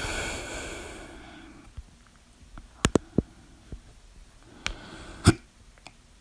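A person hiccuping: a long hissing rush at the start, then sharp, abrupt hiccups, three close together about three seconds in and one more near the end.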